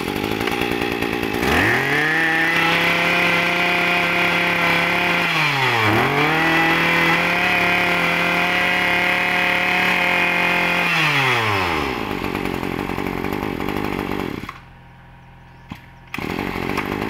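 Small 20cc two-stroke brush cutter engine idling, then revved up to full throttle and held there. It dips briefly about six seconds in and revs straight back up, drops back to idle around twelve seconds in, and shuts off a couple of seconds later.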